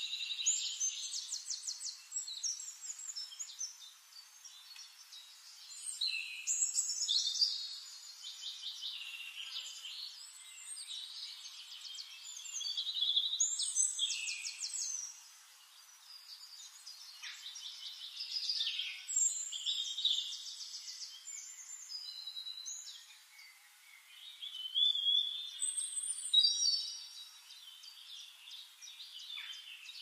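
Songbirds singing: repeated phrases of rapid, high-pitched trills and chirps, each a second or two long, with short gaps between.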